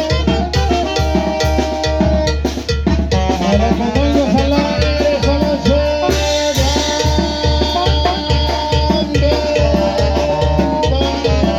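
Zacatecan tamborazo band playing: brass horns hold a melody over a steady tambora bass-drum beat with snare.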